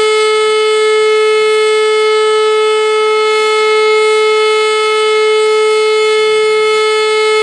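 E57 electric motor siren running at full speed, sounding one steady, loud howl rich in overtones. This is a blast of the German fire-alarm signal during a siren test.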